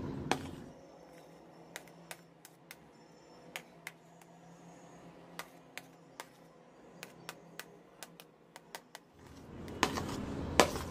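Metal spoon clinking and scraping against a ceramic plate and bowl, scooping chopped tomato off the plate into the bowl: a scatter of light, irregular clicks, with a louder clink just after the start.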